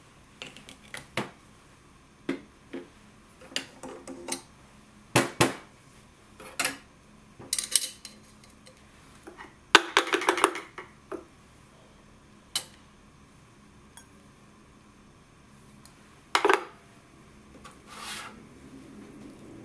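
A dozen or so separate sharp clinks and knocks of metal espresso tools being handled and set down: the grinder's stainless dosing cup and the portafilter. About ten seconds in there is a quick burst of taps.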